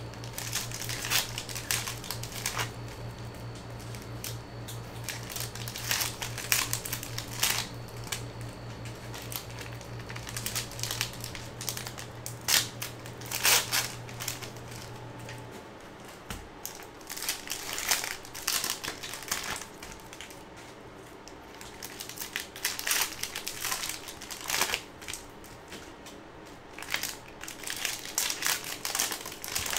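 Plastic wrappers of football trading card cello packs crinkling and tearing in irregular bursts as they are handled and ripped open by hand. A low hum underneath stops about halfway through.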